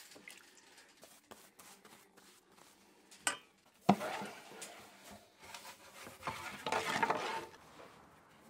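Bread loaves being loaded into a wood-fired oven on a peel: two sharp knocks of the peel on the oven floor, then scraping as the loaf is slid off, with a second, louder spell of scraping a few seconds later.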